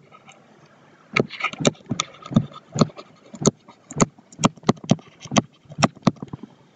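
A stylus tapping against a tablet's writing surface while a word is handwritten: a series of short, sharp taps at an irregular two to three a second, stopping shortly before the end.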